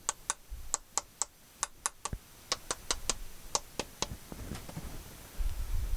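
Common blackbird giving its sharp alarm calls, a quick irregular run of short high clicks a few times a second: the female scolding because someone is near her nest. A couple of low bumps come about half a second in and near the end.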